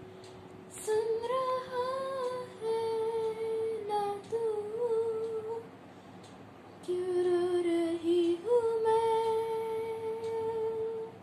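A girl's voice singing a wordless melody, hummed in long held notes with small pitch turns, in two phrases with a short pause about halfway through.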